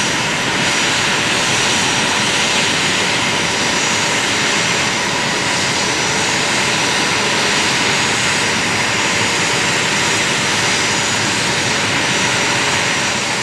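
Jet engines running steadily close by: a loud, even rush of noise with thin, steady high whining tones over it.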